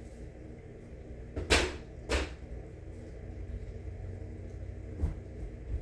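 Two sharp thumps about half a second apart, then a fainter knock near the end.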